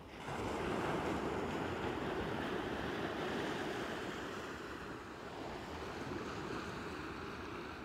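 Ocean surf: a steady wash of breaking waves that gradually fades a little toward the end.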